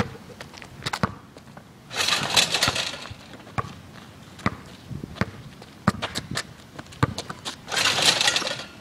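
Basketball bouncing on asphalt in irregular single thuds, with two longer clattering rattles of a portable hoop's rim and backboard as the ball is dunked, the second near the end.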